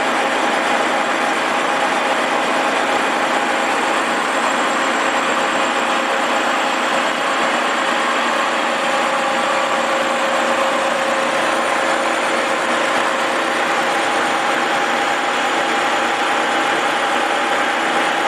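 Milling machine with an end mill cutting a 1-inch slot through a thick-walled rusty steel pipe: a steady, unbroken machining noise with a few steady tones in it.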